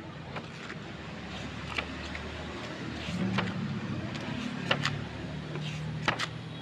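Pages of a spiral-bound sketchbook being turned by hand, several short papery flicks and flaps spread through, over a steady low background hum.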